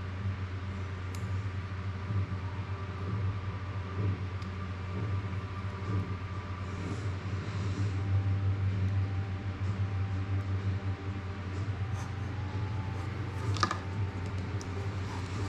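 Steady low hum of room noise, with a few light clicks as a small screwdriver works screws on a plastic drone frame.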